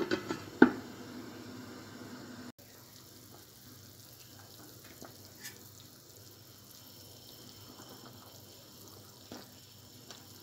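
Metal pot lid clanking several times as it is lifted off the pot, sharp knocks with a short ring in the first second. Then a faint steady sound from the simmering okra stew, with a few light clicks of a metal spoon against the pot.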